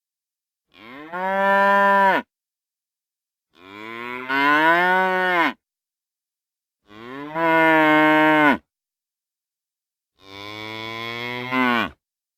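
Cow mooing: four separate long moos, each lasting about one and a half to two seconds, with silent gaps between them.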